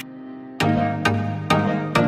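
Background music with a steady beat, which drops out briefly and comes back about half a second in.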